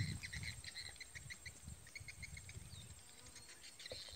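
Faint chirping of a small animal: a quick run of short, even chirps, several a second, that dies away about two and a half seconds in. Low wind rumble on the microphone underneath.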